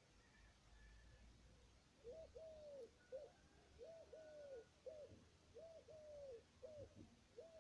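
A dove cooing in repeated three-note phrases, short–long–short, starting about two seconds in.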